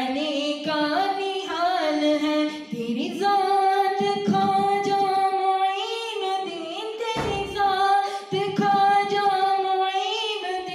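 A man singing a devotional Urdu manqabat unaccompanied into a handheld microphone. He draws out long held, ornamented notes with no clear words, with a brief pause for breath about seven seconds in.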